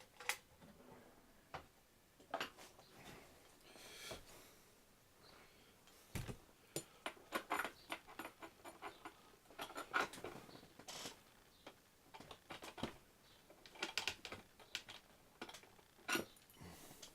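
Irregular light clicks and knocks from handling a wind-up gramophone and its winding crank, many of them scattered closely in the second half.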